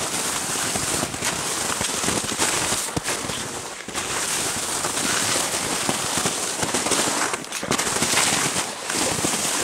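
Footsteps crunching through snow, a steady crackling noise with scattered sharper crunches.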